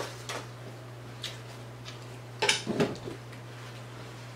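Close-miked chewing of a bite of fried seafood: scattered crunches and mouth clicks, with a louder cluster of crackles about two and a half seconds in. A steady low hum runs underneath.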